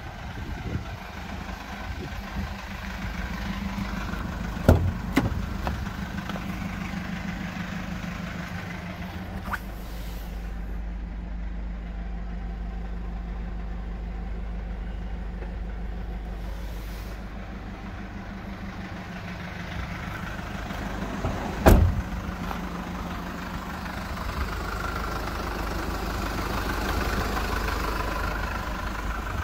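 Mercedes Sprinter 314 CDI's four-cylinder diesel idling steadily. Two sharp thumps of the cab door shutting come about five seconds in and again about twenty-two seconds in, and in between the idle is heard duller from inside the cab.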